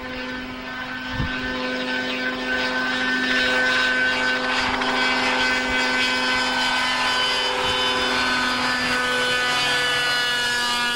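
Ikenga 530Z autogiro's Suzuki 95 hp water-cooled engine and tractor propeller running at takeoff power as the machine lifts off and climbs. The steady, many-pitched engine note swells over the first couple of seconds, then holds, with its pitch shifting slightly near the end.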